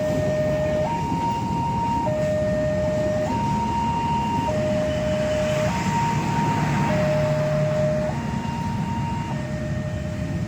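Two-tone electronic warning alarm sounding hi-lo, alternating between a lower and a higher tone about every 1.2 seconds, over a steady low rumble.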